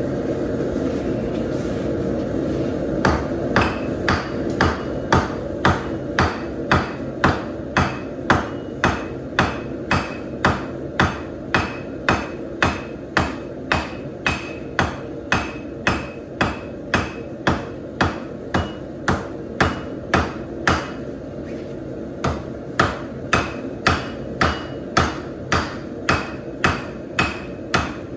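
Hammer striking steel on an anvil, about two blows a second with a short ringing after each, as an old truck coil spring is forged flat; the blows start about three seconds in and pause briefly near the end before resuming. A steady drone runs underneath.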